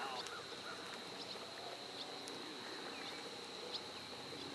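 Outdoor ambience with scattered short bird chirps and calls over a steady high-pitched tone.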